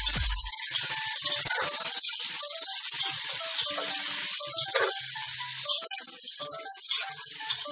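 Chicken pieces sizzling as they sauté in a metal pot, with a steady hiss and a metal ladle stirring and now and then clinking against the pot. Soft background music plays underneath.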